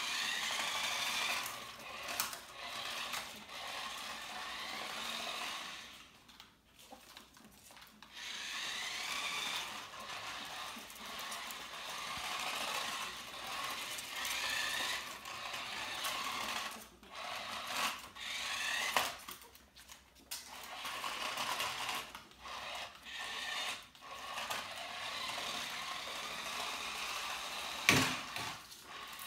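Electric motor of a small remote-controlled toy car whining in repeated runs as it drives, starts and stops, its pitch rising and falling with speed. A sharp knock sounds near the end.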